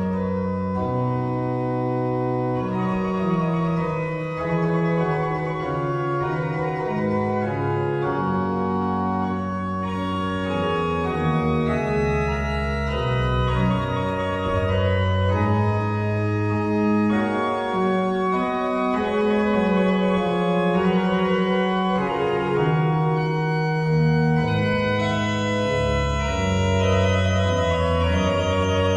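Sampled Mascioni pipe organ played through virtual organ software: a polyphonic piece of sustained chords over a moving pedal bass, at a steady level.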